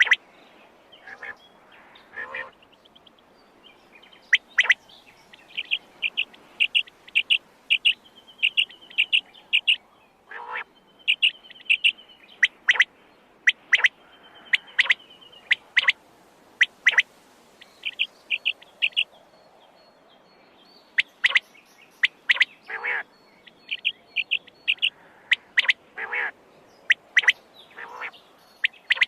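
Quail calling: short sharp notes repeated over and over, some in quick runs of several notes, others single, with short pauses between.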